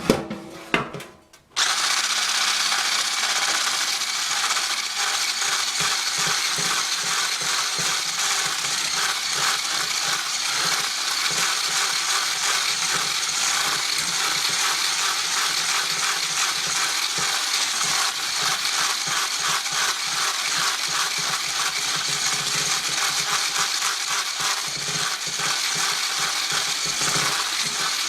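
Electric kitchen blender running steadily with a fast, even flutter, mixing banana cake batter; a few clicks just before it starts, less than two seconds in.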